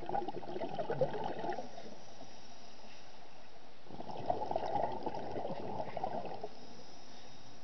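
A scuba diver's exhaled bubbles gurgling underwater in two breaths: one fades out about a second and a half in, and the next runs from about four to six and a half seconds in, with a quieter gap between.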